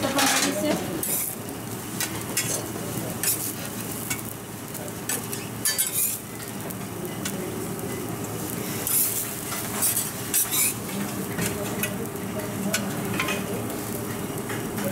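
A metal spatula scraping and tapping on a hot flat dosa griddle over a steady sizzle, with sharp clinks as the cut dosa is scraped onto a stainless steel plate. The scrapes and clinks come irregularly, loudest at the start, around the middle and again a little later, over a low steady hum.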